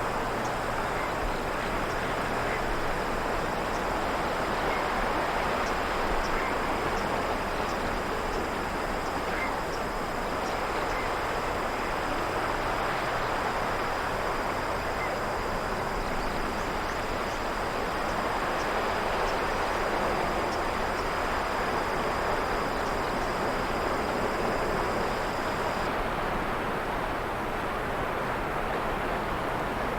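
Sea waves washing steadily with slow swells, under insects chirring in a continuous high-pitched drone that stops about four seconds before the end.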